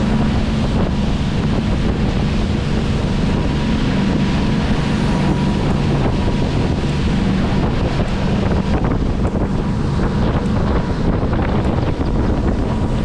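Charter fishing boat running at speed: a steady engine drone under heavy wind buffeting on the microphone and the rush of the wake.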